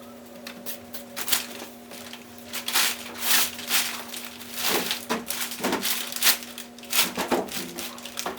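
Dishwasher packaging being handled and torn open: irregular crinkling and crunching, with a steady hum underneath.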